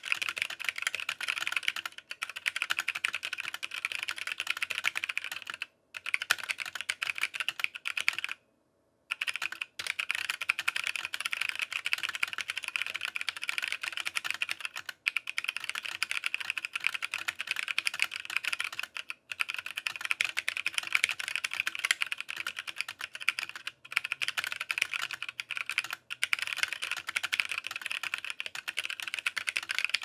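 Fast, continuous typing on a CFTKB Discipline 65% mechanical keyboard fitted with tactile Shaving Cream switches (Razer orange tactile stems in Cream housings) and ePBT keycaps. It is broken by a few short pauses, the longest about a second, around nine seconds in.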